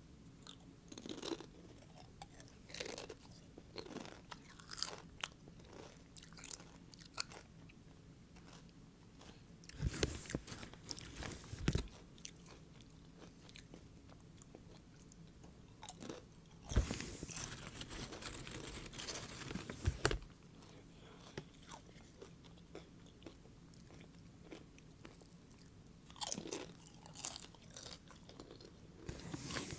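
Close-miked ASMR trigger sounds: soft scattered clicks and taps, with louder clusters of crackling about ten seconds in, again around seventeen to twenty seconds, and near the end.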